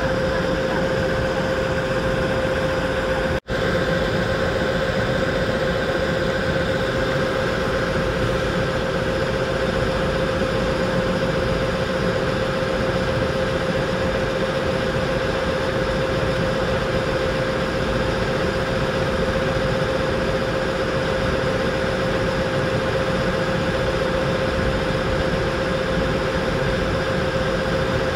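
Excursion ship's engine running steadily under way: a constant drone with a steady hum, over an even rushing noise. The sound cuts out for an instant about three and a half seconds in.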